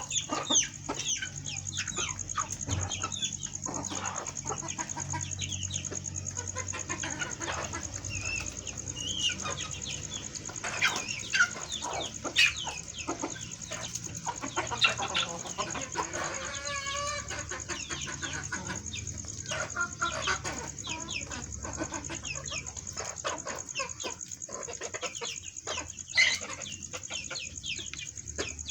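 A flock of chickens clucking and calling, many short overlapping calls throughout, over a steady high-pitched whine and a low hum.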